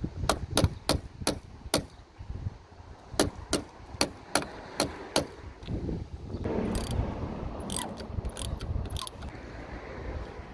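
Ratchet spanner clicking in two short runs, about three clicks a second, as a car battery terminal clamp is worked on. From about six seconds in there is a rustle of handling with a few scattered clicks.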